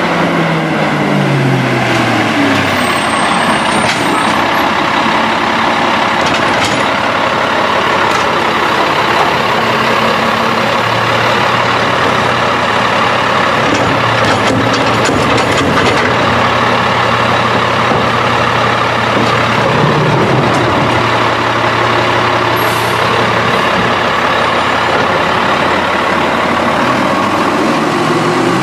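CCC E-Z Pack side-loading garbage truck engine winding down as the truck pulls up, then running while a cart is tipped into the hopper, with a few knocks. The engine holds a raised, steady note for about twelve seconds midway as the packer cycles, then rises as the truck pulls away near the end.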